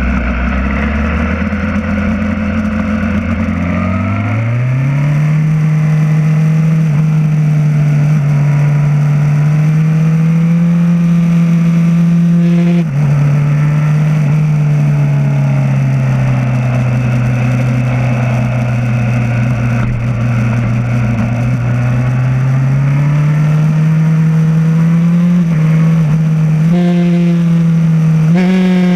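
BMW S1000R's inline-four engine heard from the rider's seat as the bike accelerates. The engine note rises about four seconds in, holds steady, dips briefly about halfway through, then climbs slowly again toward the end.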